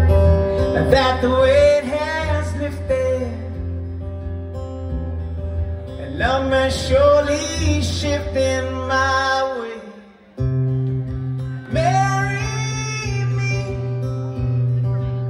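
A male singer singing a slow ballad live, accompanied by his own strummed acoustic guitar and heard through the concert sound system. The sound drops out briefly about ten seconds in, then the guitar comes back on a new chord under the voice.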